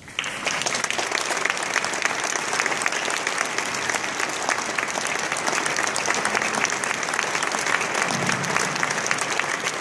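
Audience applauding: a large crowd clapping, breaking out all at once as the song ends and keeping up steadily.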